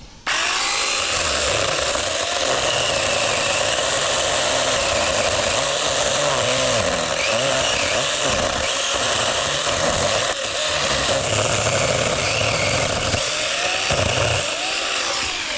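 Sharklogger cordless mini chainsaw cutting a stump: the electric motor starts abruptly and runs steadily at high speed with a constant whine, dipping slightly in pitch as the chain bites into the wood, then fades near the end.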